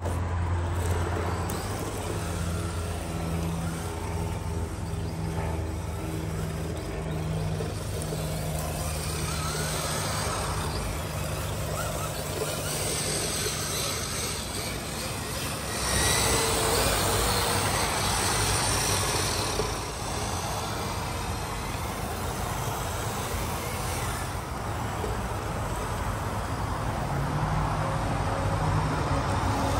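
Motor vehicle noise: a steady low engine hum through the first half, then a louder spell of rushing noise from about sixteen to twenty seconds in.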